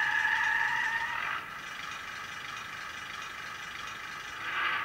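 Diesel shunter engine sound from the Hornby Ruston 48DS model's DCC sound decoder, idling through the model's tiny onboard speaker and sounding thin and tinny. About a second and a half in it drops quieter, and it swells briefly near the end.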